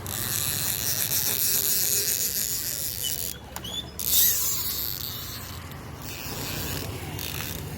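Fishing reel clicking and whirring rapidly as a hooked catla is played and reeled in.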